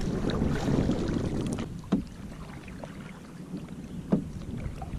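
Water lapping and splashing around a canoe, with wind rushing on the microphone, loudest in the first couple of seconds. Two sharp knocks about two seconds apart.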